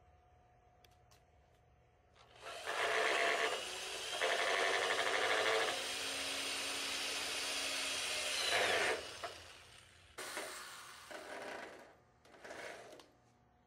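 Corded electric drill driving a screw up through the metal of a pergola post, the motor running with the screw grinding into the metal for about six seconds. A few short bursts of the drill follow near the end.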